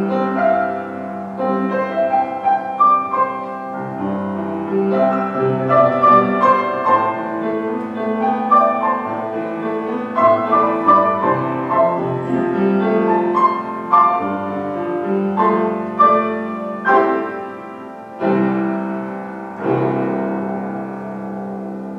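Upright piano played solo: a flowing melody over chords, closing with two held chords struck a second or two apart that ring and fade away.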